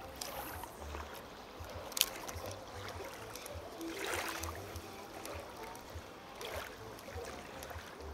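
Faint water lapping at the bank, with scattered low rumbles and a single sharp click about two seconds in.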